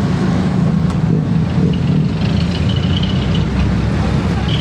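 Jeepney's engine running with a loud, steady low rumble, heard from a riding passenger's seat. About halfway in a thin, high squeal joins it and grows stronger near the end.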